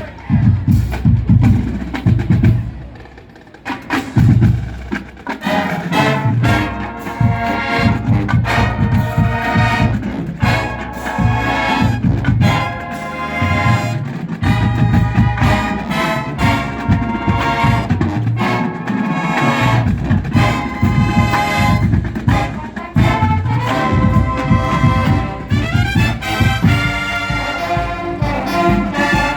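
College marching band playing its closing number. Heavy drum hits open it, then it eases off briefly, and from about five seconds in the full brass section plays loud chords over the drumline.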